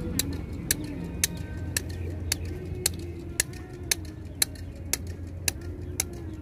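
Sharp clicks repeating very evenly, about two a second, over a steady low rumble.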